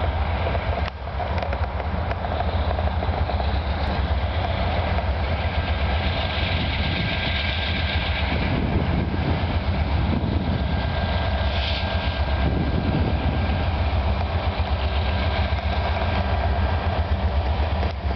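Diesel locomotives of a freight train running steadily as the train approaches, a continuous low engine rumble.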